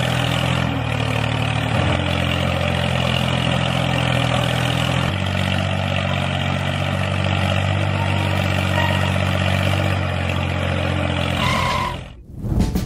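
Engine running steadily with a low, even drone, like a tractor engine idling; the sound drops away sharply about a second before the end.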